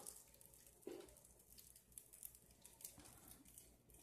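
Near silence: room tone with a few faint, soft handling noises.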